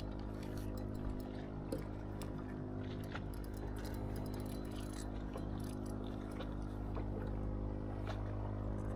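Steady low hum of a boat motor running at a constant speed, with scattered small clicks and taps.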